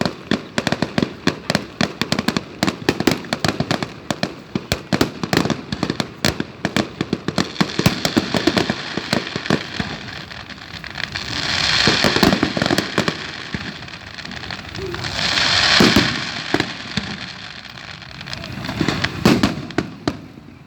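Aerial fireworks shells bursting in quick succession, a dense string of sharp bangs. Around the middle this gives way to two longer hissing swells, and a few more bangs come near the end.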